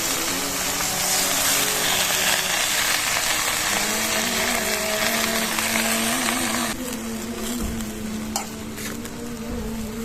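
Water spinach (kangkung) stir-frying in hot oil, sizzling loudly. The sizzle drops off sharply about two-thirds of the way through, followed by a few light knocks.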